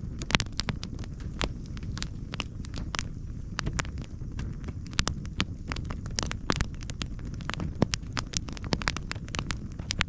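Campfire of split logs burning well, crackling with sharp pops scattered irregularly over a low steady rumble.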